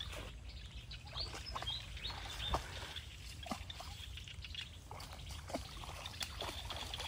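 Outdoor waterside ambience: scattered small plips and trickles of water, with a few short bird chirps about a second in and a low rumble underneath.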